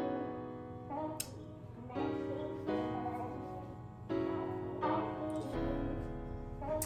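Background piano music, with a new chord struck about once a second and left to ring and fade.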